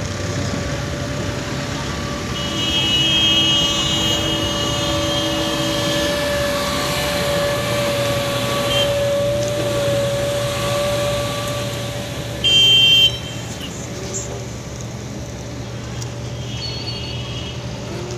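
Road traffic running steadily, with vehicle horns honking: a longer horn a couple of seconds in, one short loud blast about two-thirds of the way through, and a fainter honk near the end.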